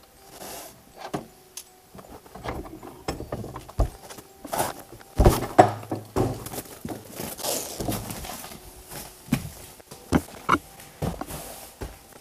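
A key rattling and clicking in the lock of an old wooden door, then the door being forced open with a loud thud about five seconds in, followed by scattered knocks and footsteps.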